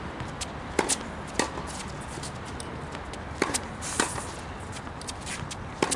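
A tennis ball struck by rackets and bouncing on a hard court during a rally: about five sharp pops, some in pairs about half a second apart.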